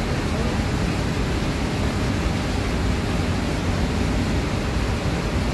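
Steady rushing noise from an indoor shooting range's ventilation, with no shots fired.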